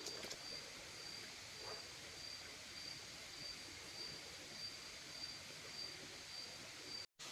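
Faint insect song, a cricket-like high note pulsing about twice a second over a soft hiss. It cuts off abruptly near the end.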